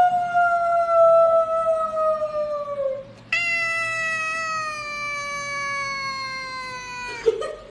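Silver tabby cat giving two long, drawn-out meows, each sliding slowly down in pitch. The second begins about three seconds in, and a short sharp sound comes just before the end.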